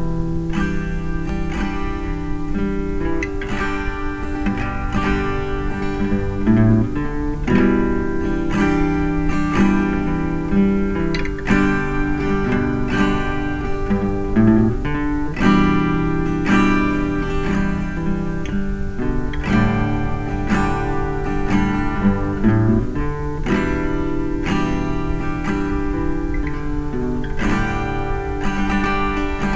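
Two acoustic guitars playing together as a duet, with chords strummed and picked steadily.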